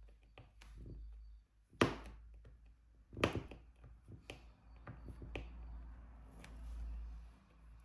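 Scattered small taps and clicks from diamond painting work: the drill pen and resin drills tapping on the canvas and tray. The two loudest taps come about two and three seconds in, with fainter clicks after them, over a low steady hum.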